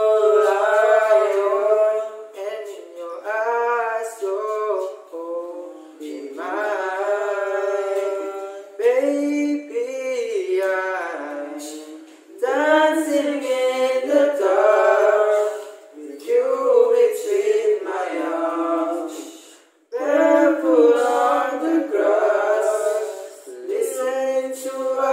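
A small group singing a cappella, several voices together, in phrases of a few seconds with short breaks between them.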